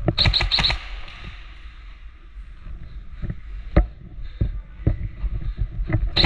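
An airsoft gun firing quick strings of sharp shots, one burst just after the start and another near the end, with a few dull knocks in between.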